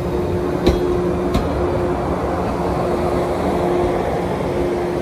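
A 415 series electric train rolls past, a steady rumble with its wheels clacking over rail joints a couple of times in the first second and a half. Under it, the level crossing's warning alarm rings on a steady tone.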